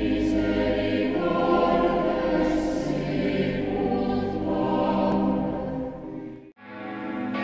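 Choral music, a choir singing sustained chords, which dips and cuts off about six and a half seconds in. Church bells start ringing just after the cut.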